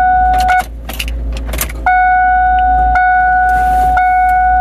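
1997 Ford Mustang's key-in-ignition warning chime (the ding). It is a steady high tone that cuts out about half a second in and starts again near the two-second mark, while the keys jangle and click at the ignition. The owner says this chime sometimes fails to sound.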